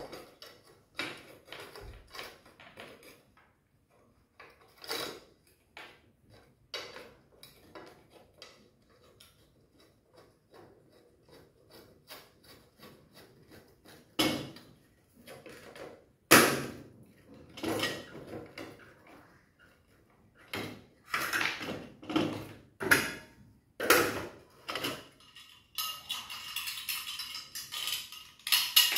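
Aluminium window-frame profiles and steel hand tools being handled on a workbench: irregular metallic clinks, taps and knocks with some scraping, the loudest knock about 16 seconds in.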